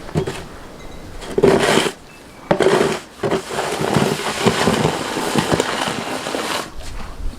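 Snow shovel scraping through snow and along the ground: two short scrapes, then a longer stretch of scraping.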